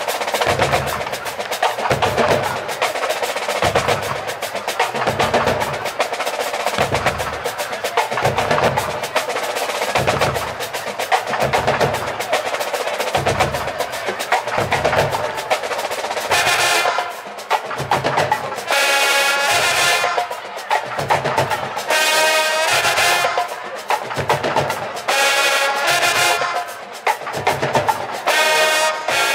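Marching band in the stands: the drums play a cadence over a steady low bass-drum beat, then a little over halfway through the full brass section (trumpets, trombones, sousaphones) comes in loud, playing in short punched phrases.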